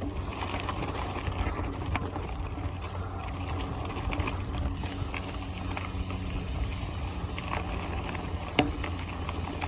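Mountain bike being ridden along a dirt trail: steady tyre and rolling noise with scattered rattles and clicks from the bike over bumps, and one sharper knock near the end.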